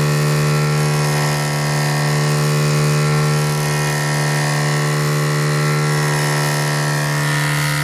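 Small electric motor of a home-built washing-machine pump rig running at a constant speed, giving a loud, steady hum with a strong low tone.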